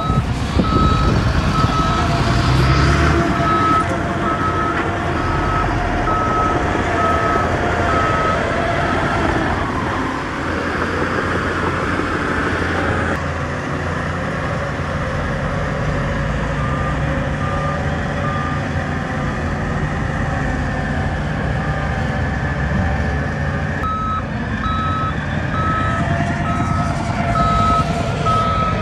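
Heavy diesel earthmoving machinery running, with a reversing alarm beeping at a steady pace through the first third, faintly around the middle, and again near the end.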